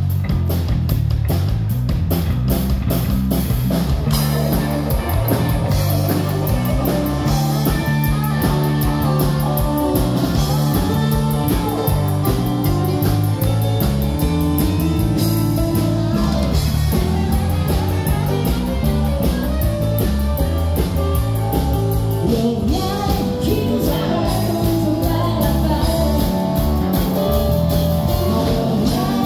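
Live country music: a woman singing over a band with guitar and drums.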